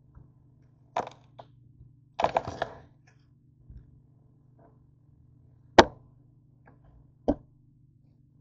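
Kitchen knife cutting through boiled potatoes and knocking against the cutting surface: a knock about a second in, a short clatter of quick knocks a little after two seconds, then a loud sharp knock near six seconds and another just after seven.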